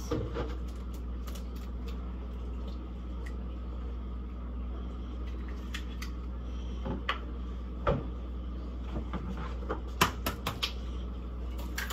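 Eggs being cracked into a mixing bowl: scattered light taps and clicks of shell against the bowl rim and the counter, the loudest about eight seconds in and a quick cluster near the end, over a steady low hum.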